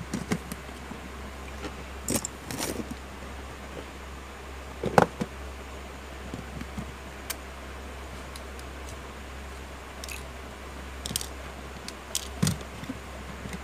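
Scattered clicks, taps and light clatters of a disassembled smartphone's plastic frame and screen, a small phone and metal opening tools being handled and set down on a rubber work mat, the loudest knock about five seconds in. A steady low hum runs underneath.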